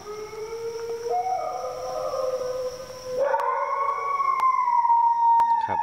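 Several dogs howling together at night in long, drawn-out, overlapping howls. About three seconds in, a louder, higher howl joins, rising slightly and then slowly falling in pitch.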